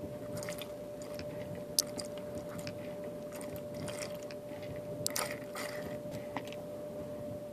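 Close rustling and scattered clicks from the camera being handled against its surroundings, over a steady faint hum.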